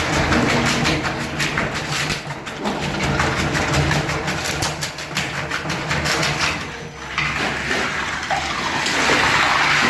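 Floor-removal machine running with a steady low hum and rapid chattering knocks as its blade scrapes up flooring, with the scraping growing louder and harsher from about seven seconds in.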